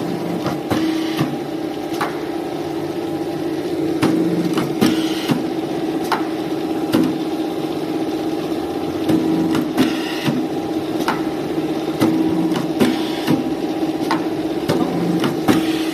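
Hydraulic two-head paper corner-rounding machine running: a steady motor and pump hum, with repeated clicks and short hisses of compressed air at irregular intervals as its pneumatic and cutting heads work.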